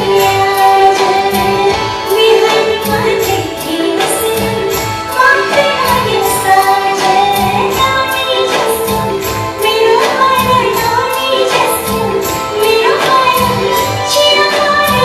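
Live band performing a Nepali film song: a singing melody over a steady percussion beat.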